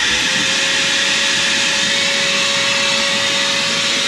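Household vacuum cleaner set to blow, running steadily at full power with a steady whine, blowing air into a boat's diesel fuel tank to stir the fuel around.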